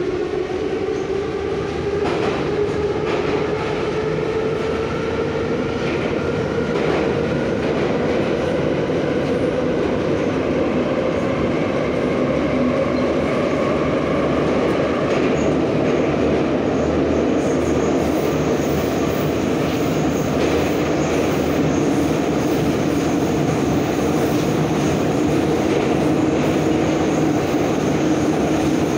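Em-series metro train (1975–76 Em-501/Ema-502 cars) running through a tunnel, heard from inside the car. The traction motors' whine rises in pitch over the first several seconds as the train gathers speed, then holds steady over the running rumble, with occasional wheel clicks. A thin high tone comes in a little past the middle.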